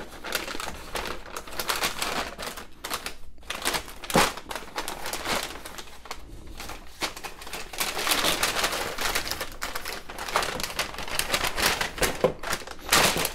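White paper packaging rustling and crinkling as it is handled and unwrapped by hand, with small clicks and taps against the cardboard box.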